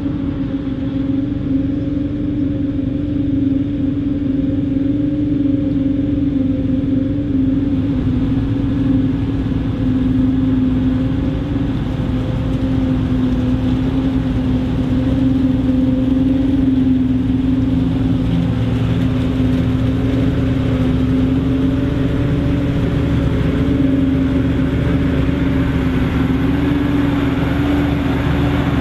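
Krone Big X 780 self-propelled forage harvester running under load while chopping maize, a steady machine hum with a strong low tone, mixed with the tractor and silage trailer driving alongside.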